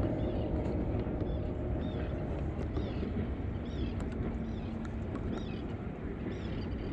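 Boat on the river with its motor holding position: a steady low rumble of motor, water and wind, with a faint hum midway and faint high chirps repeating through it.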